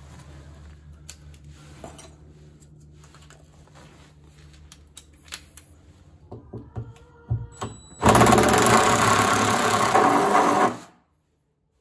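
Cordless drill with a 3/4-inch bit boring out the bung hole of a plastic stock tank: loud, steady drilling for about three seconds that stops suddenly, with a few clicks and short spurts beforehand as the bit is set.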